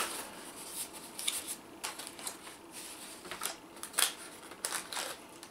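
Small cardboard box being handled and opened by hand: light scraping and rustling of cardboard flaps with scattered clicks and taps, the loudest about four seconds in.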